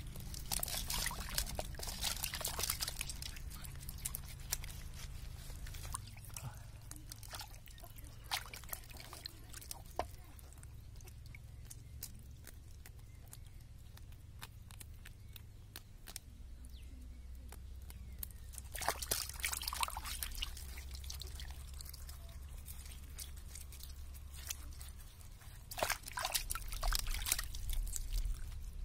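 Water sloshing and dripping in a metal pot as hands rub and wash pieces of cow leg, louder in three bouts: near the start, about two-thirds of the way through, and near the end. Small scattered clicks fall between the bouts.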